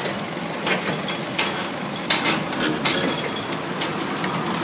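Cardboard boxes being handled and stacked, with about four short sharp knocks and scrapes over a steady background noise.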